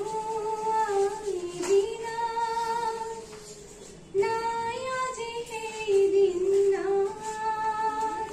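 A woman singing solo without accompaniment, in long held notes that slide between pitches, with a short break about four seconds in.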